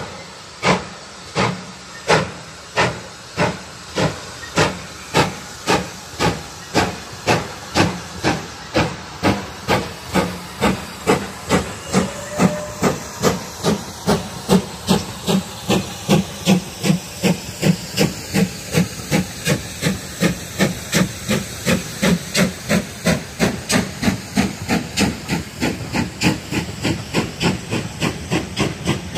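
Steam locomotive pulling away with a train of coaches: sharp exhaust chuffs, slow at first and quickening steadily to about three a second, with a hiss of steam between the beats.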